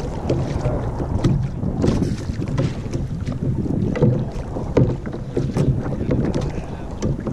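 Wind buffeting the microphone and small waves lapping against a sit-on-top kayak's hull, with scattered short splashes and knocks throughout.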